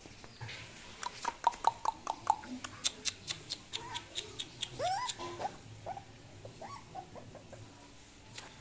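Young puppy giving a short whimper that rises in pitch about five seconds in, followed by a few brief faint squeaks. Before it comes a quick run of sharp clicks or taps.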